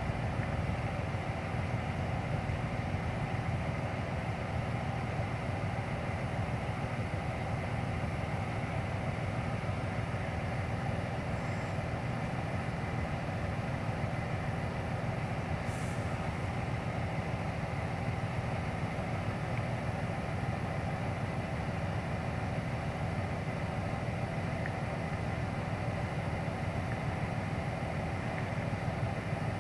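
Freight train of autorack cars rolling past with a steady, unchanging rumble. A brief click sounds about halfway through.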